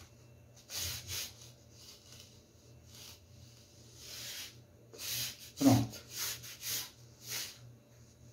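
Hands rubbing and wiping along a plastic cake board, clearing off excess whipped cream, in short rasping strokes: two about a second in, then a run of them from about five seconds, with a soft knock a little past halfway.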